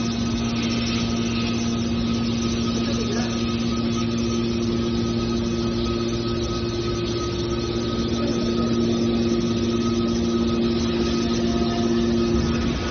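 Hydraulic metal baler's power unit running steadily: a constant machine hum with several fixed tones and no change in pitch.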